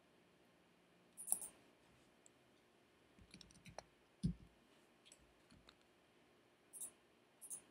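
Faint, scattered computer mouse clicks, a handful spread over several seconds, with one soft low thump about halfway through.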